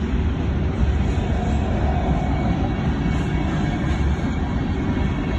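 Coal hopper cars of a freight train rolling past: a steady low rumble of steel wheels on rail.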